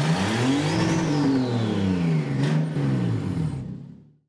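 Car engine revving up and back down twice, fading out near the end, with a brief sharp burst about two and a half seconds in.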